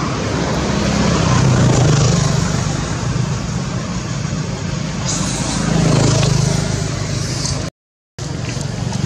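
Steady motor-vehicle engine and traffic noise with a low engine hum that swells twice. The sound drops out completely for about half a second near the end.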